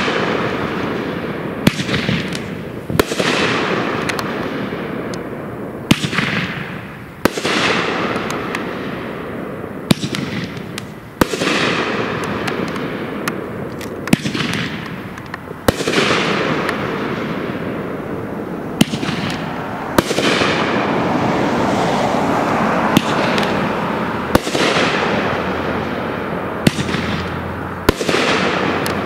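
Shiny Star 'Deep Impact' 12-shot firework cake firing shot after shot. There is a sharp bang every second or two, each followed by a hiss that fades over a second or two.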